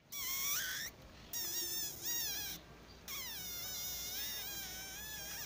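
Caramel-coloured mixed-breed dog whining: three short high-pitched whines, the first rising at its end, then one long wavering whine.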